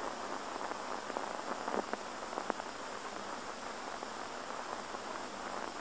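Steady hiss of an old optical film soundtrack, with a few faint crackles and no other sound.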